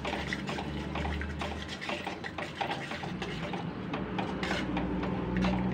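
Cornflour slurry pouring into sauce in a metal kadhai while a spoon stirs it, with frequent scrapes and clicks of the spoon against the pan and a steady low hum underneath.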